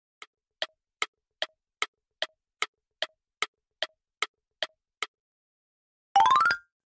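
Countdown timer's ticking sound effect, evenly about two and a half ticks a second, which stops about five seconds in. About a second later comes a short, loud electronic sound effect that rises in pitch in quick steps.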